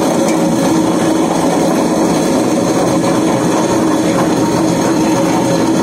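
Butterfly Flora Plus table-top wet grinder running steadily: an even motor hum with the drum turning against its grinding stones.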